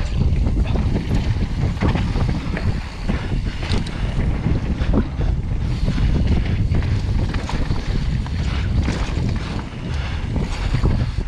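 Wind buffeting the microphone of a mountain bike's first-person camera on a fast descent of a dirt trail, with a steady low rumble of tyres on dirt and many short clicks and knocks from the bike rattling over the bumps.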